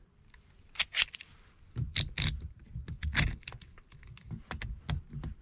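Metal clicks and clanks of channel-lock pliers being handled and set against a water pressure reducing valve during its reassembly. It is an irregular run of sharp strokes, loudest about two and three seconds in.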